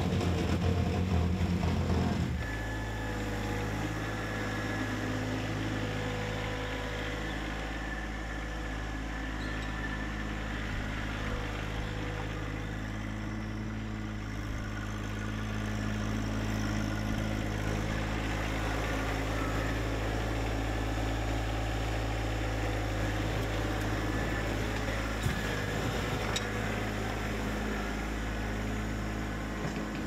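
Tractor engine running steadily at idle, an even low hum. A louder, busier sound plays for the first two seconds and cuts off abruptly.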